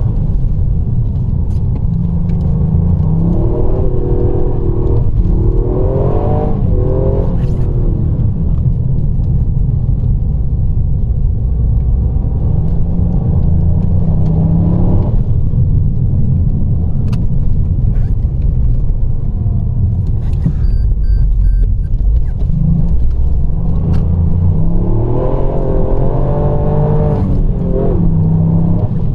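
Car driving along a road: steady engine and road rumble, with the engine pitch rising and falling a few times as the car accelerates and eases off.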